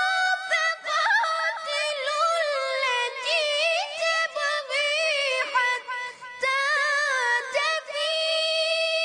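Qur'an recitation (tajwid): one high-pitched voice chanting a verse in long, ornamented melodic runs. There are short breath breaks past the middle, and it ends on a long held, wavering note.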